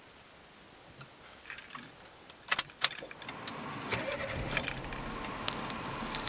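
Keys jingling on a key ring as the ignition key of a Suzuki Alto HA24S is handled, then a steady low engine hum from about four seconds in.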